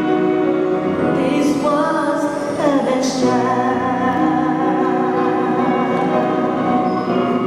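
Choir singing Christmas music with instrumental accompaniment, held chords throughout and a voice with a wavering vibrato standing out from about three seconds in.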